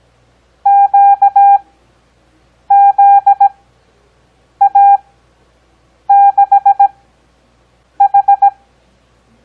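Morse code practice tone sending five characters at a 17 WPM character speed with wide Farnsworth spacing for an overall 6 WPM. Each character is a quick run of dots and dashes in a single steady beep, with pauses of roughly a second between characters.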